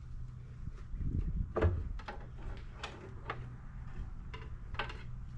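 Irregular clicks and knocks of hand work with parts and tools, with a heavier knock about one and a half seconds in, over a steady low hum.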